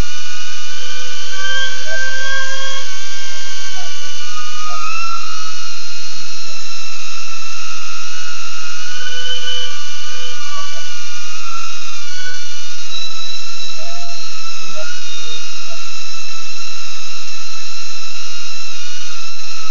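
Small brushless motors of a BetaFPV Aquila16 FPV quadcopter whining steadily, with several high pitches drifting up and down together as the throttle changes.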